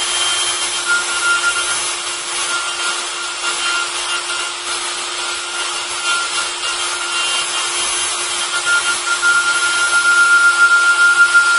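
Kress milling motor on a Stäubli TX60 robot arm cutting into a block: a steady high spindle whine over the rasping of the cutter in the material, getting a little louder near the end.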